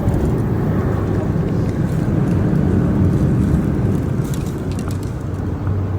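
A motor running steadily: a low, even rumble with a constant hum.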